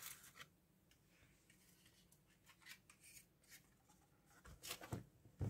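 Near silence broken by faint rustling and light clicks of small plastic plant cups being handled in a plastic box, with a few soft knocks near the end.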